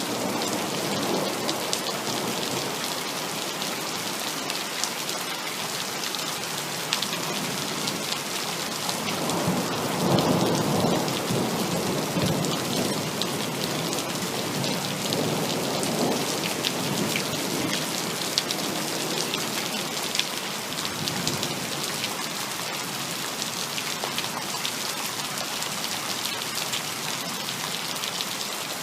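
Heavy rain falling steadily, with rolls of thunder: a long low rumble swelling about a third of the way in and a fainter roll a few seconds later.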